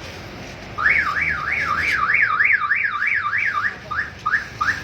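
Car alarm siren warbling, its pitch sweeping up and down about three times a second, then breaking into a few short separate chirps near the end.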